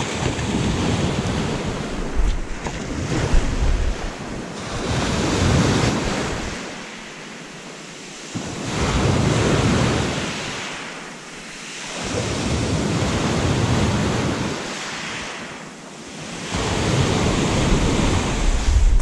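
Sea surf washing against the shore, swelling and fading about every four seconds, with wind buffeting the microphone.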